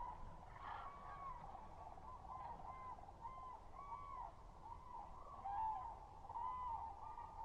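A flock of common cranes calling: many overlapping trumpeting calls, each a short note that rises and falls, following one another at about two a second.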